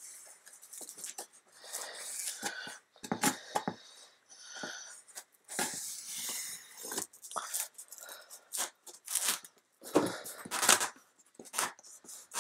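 A dull knife blade scraping and slicing along packing tape on a corrugated cardboard box, in irregular strokes, with the tape tearing and squeaking. Cardboard rustles as the flaps are pulled apart, and the loudest scrapes come about ten seconds in.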